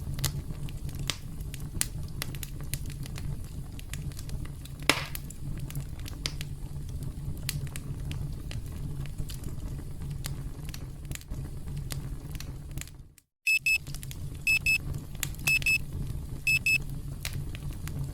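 Campfire crackling, with sharp pops over a low rumble. About thirteen seconds in the sound cuts out for a moment, then a high-pitched electronic timer alarm starts beeping in quick pairs about once a second over the fire.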